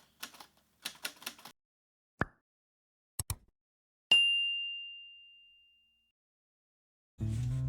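Typewriter keys clacking in a quick run, then a few separate clicks, then a single bright bell ding that rings out and fades over about two seconds. Guitar music starts near the end.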